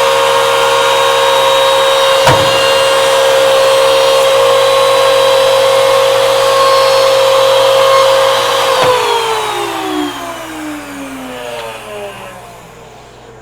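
Edgebanding machine's motors running with a loud, steady high whine, with a sharp click about two seconds in. About nine seconds in the machine is switched off and the whine winds down, falling steadily in pitch and fading away.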